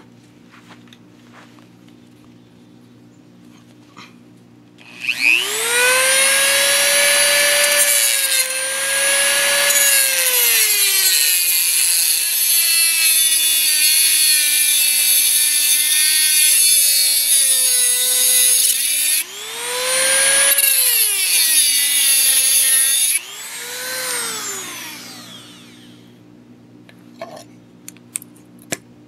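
Handheld rotary tool with a cut-off disc spinning up to a high whine, its pitch sagging as the disc bites into a flattened copper cable lug to cut a notch. It stops briefly and runs twice more, shorter, before winding down. A few light hammer taps on the lug come near the end.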